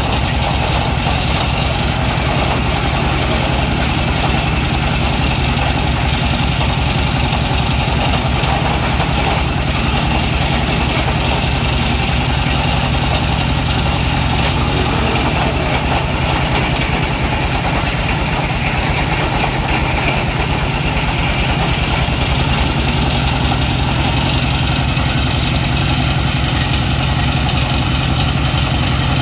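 Engine-driven wood crusher mill running steadily at working speed, a fast, even engine beat under the noise of the rotor grinding dry coconut palm material fed in by hand.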